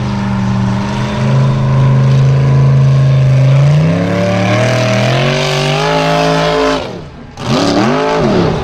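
Formula Offroad buggy's engine at high revs, its pitch climbing steadily as the car accelerates. The sound drops out briefly about seven seconds in, then comes back as a sharp rev that rises and falls as the buggy goes nose-up on a steep cliff climb.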